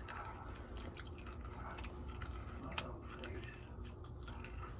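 Faint crunching and clicking of a snack being chewed, over a low steady hum, with one sharper click a little before three seconds in.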